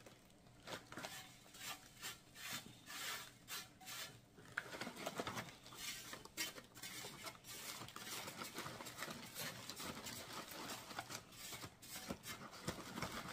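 Freeze-dried rice and soup crumbs pattering and sliding off a metal freeze-dryer tray into a foil bag as the tray is shaken and brushed by hand. Faint, quick taps at first, turning into a denser rustle about halfway through.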